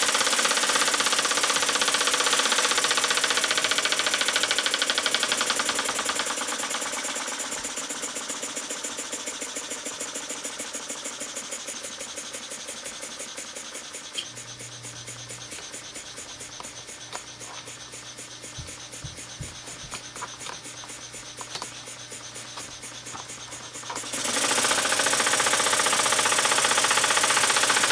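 A small double-acting oscillating model steam engine running fast with a rapid stream of exhaust beats. From about six seconds in it gradually gets quieter, and about 24 seconds in it suddenly gets loud again.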